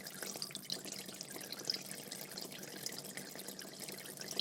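Medium-size aquarium fish tank with water flowing and many small bubbles popping and gurgling at the surface, steady and continuous, with a faint steady hum underneath.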